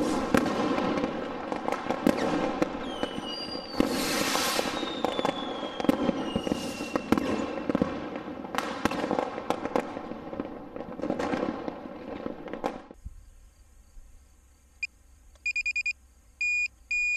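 Fireworks: a rapid string of bangs and crackles, with whistling rockets gliding down in pitch about four to seven seconds in. The bangs die away after about thirteen seconds, and a few short electronic beeps follow near the end.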